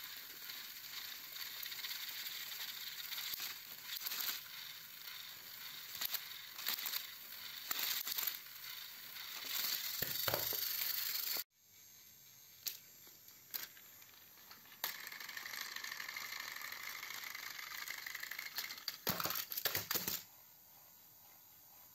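Battery-powered toy trains running on plastic track: a steady motor whir with clicking and rattling of plastic wheels and cars, cut off suddenly about halfway. After that come quieter clicks and clatter of plastic toy trains being handled, with a few louder knocks near the end.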